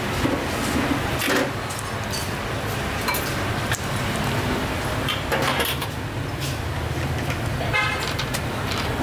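Steady low rumble of road traffic, with a short vehicle horn toot near the end. Scattered clinks of a metal ladle and bowls come through now and then.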